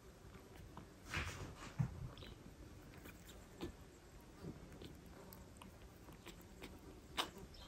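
Faint licking and rustling from a mother cat grooming her small kitten, with a few soft clicks. The loudest moments are a brief rustle about a second in, a click just after it and another click near the end.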